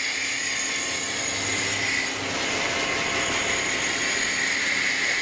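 Self-serve car wash pressure wand spraying water onto a car, a steady hiss with a high whine.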